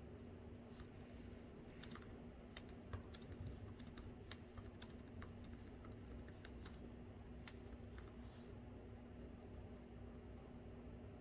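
Faint typing on a laptop keyboard: irregular, quick key clicks in bursts over a steady low background hum.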